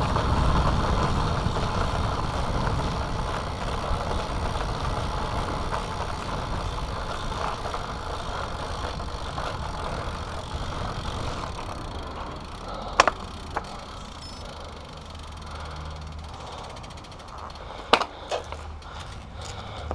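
A steady rumble of wind and road noise on a GoPro that slowly fades, then a handful of sharp plastic clicks from the GoPro's case, a pair about two-thirds of the way in and another pair near the end.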